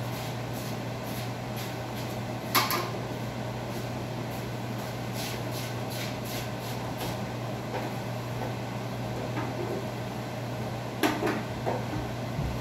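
A sharp knock about two and a half seconds in and a short run of knocks near the end, over a steady low hum.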